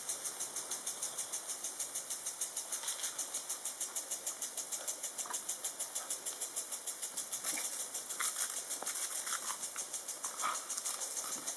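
Impact garden sprinkler ticking and hissing as it sweeps its water jet, about four to five pulses a second. A few short louder sounds come in the second half as the dog lunges at the spray.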